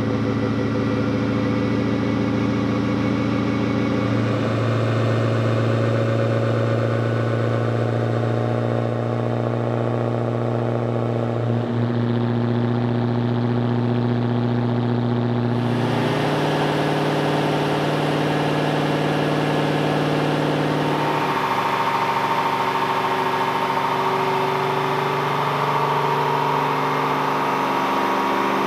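Holden VY ute's 5.7-litre LS1 V8 running through its aftermarket exhaust, held at steady engine speeds and stepping up in pitch several times, about 4, 12, 16 and 21 seconds in. It is a baseline run on a chassis dyno for a near-stock LS1 with only a cold-air intake and exhaust.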